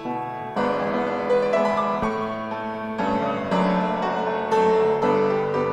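Live piano accompaniment for a ballet class: chords and a melody played without a break, with a new chord struck every half second to a second.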